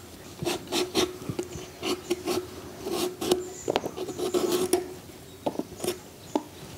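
Curved iron knife shaving the hard skin off slices of ash gourd: short rasping scrapes, a few a second, in an irregular rhythm.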